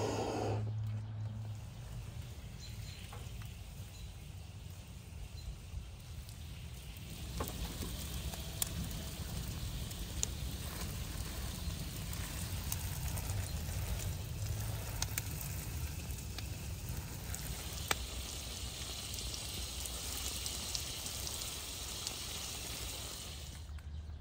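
Freshly lit wood fire crackling with scattered sharp pops. From about seven seconds in, a garden hose sprays water onto a tree's leaves with a steady hiss and patter.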